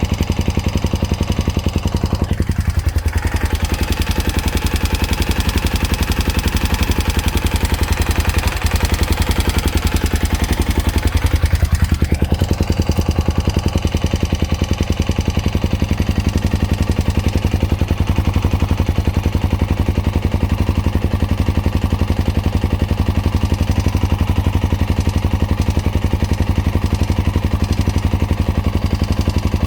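Honda Dominator NX650's single-cylinder engine idling hot, with a rapid, even clicking over the running sound. The owner traces the clicking to the cam chain area, possibly the cam chain guides, since a new chain, tensioner, cam and rocker arms have not cured it.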